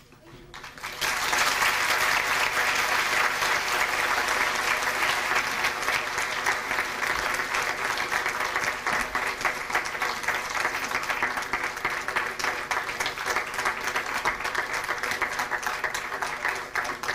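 Audience applauding. The clapping swells up sharply about a second in and stays full, then thins into more scattered claps near the end.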